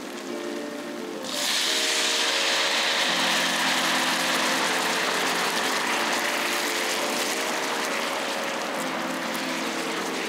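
Shaoxing wine hitting a hot pan of caramelized sugar and pork belly: a sudden loud hiss about a second in, settling into a steady sizzle that slowly eases.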